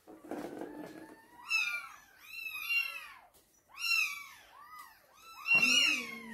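Maine Coon cats giving short, high chirping meows one after another, several cats overlapping, excited by a feather wand toy. Near the end a lower, drawn-out tone joins in.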